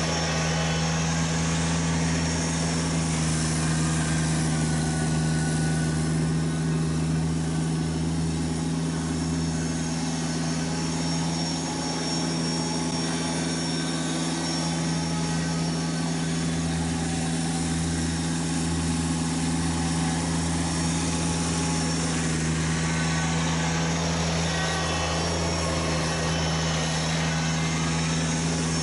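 Kubota BX1870 compact tractor's three-cylinder diesel engine running at a steady, even pitch while plowing snow.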